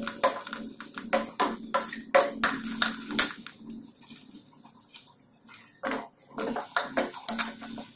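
Steel slotted spatula scraping and clinking against a stainless-steel kadhai as grated coconut and sugar are stirred into ghee. The strokes come quickly for the first few seconds, then thin out to a few scattered scrapes.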